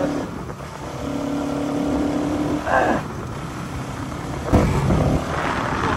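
Motorcycle engine running while riding along, with a steady hum. There is a sharp knock about four and a half seconds in.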